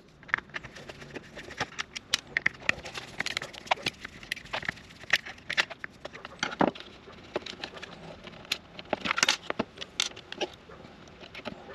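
Screwdriver and hands working on a plastic foot-switch housing: irregular clicks, taps and light scrapes as the screws holding the limit switch are backed out and the switch is worked loose, with a busier patch of clicking near the end.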